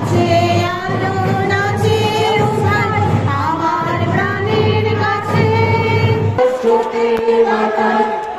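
Several women singing a song together into microphones, with long held notes. A low steady hum runs under the singing and stops about six and a half seconds in.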